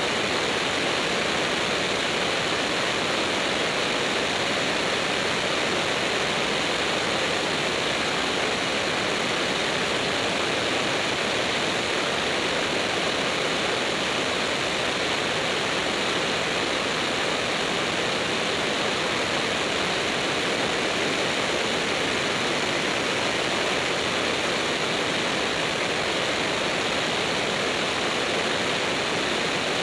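Steady, unchanging rush of airflow and engine noise from a small single-engine propeller plane in level flight, with no distinct engine tone standing out.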